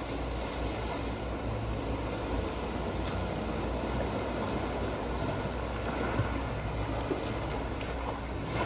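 Suzuki Jimny JB74's 1.5-litre four-cylinder engine running steadily while the vehicle drives, with a low hum and constant tyre and road noise.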